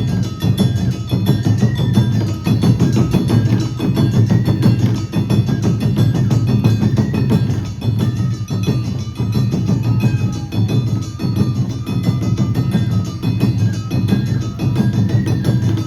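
Awa Odori festival band playing: drums and metallic clanging percussion keep a fast, steady rhythm under a high stepping melody.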